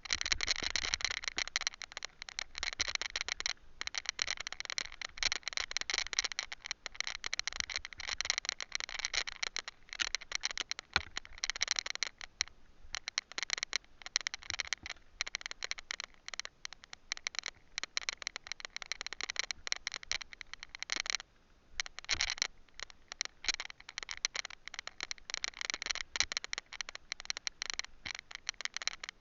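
Camera rattling in its mount while riding over rough trail, a dense, irregular clatter of clicks and scrapes that eases briefly about 21 seconds in.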